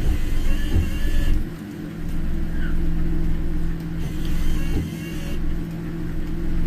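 Car running with a steady low engine and road hum, heard from inside the cabin.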